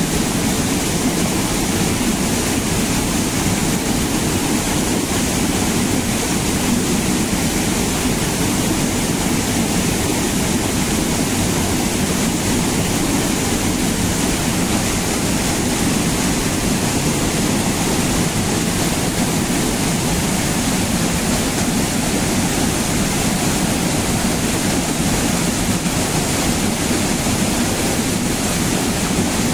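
Rain-swollen waterfall pouring into a churning pool: a loud, steady rush of water that does not change.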